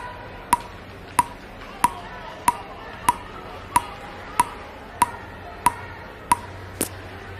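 Table tennis ball bouncing on a paddle: a steady run of about a dozen light taps, roughly three every two seconds, each with a short ring.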